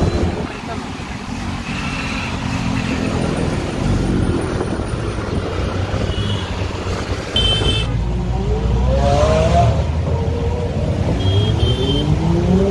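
Sports car engine revving in city traffic, its pitch sweeping upward twice in the second half, over a steady rumble of traffic and road noise. A few short high-pitched beeps cut through.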